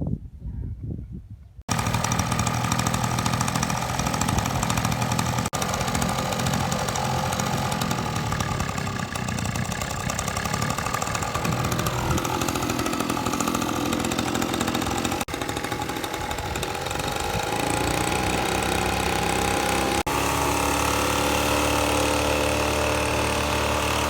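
An engine running steadily, starting sharply about two seconds in and broken by a few sudden cuts, with its pitch shifting slightly after each.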